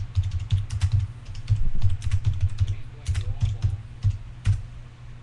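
Typing on a computer keyboard: a quick, irregular run of keystrokes with low thumps from the desk, stopping about four and a half seconds in.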